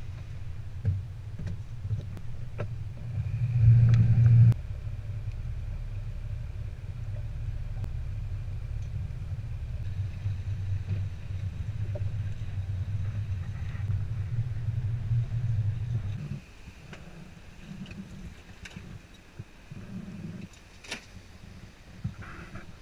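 Sailboat's auxiliary engine running steadily with a low rumble, swelling louder for about a second near the start. It stops abruptly about two-thirds through, leaving quieter wind and sea noise with a few knocks.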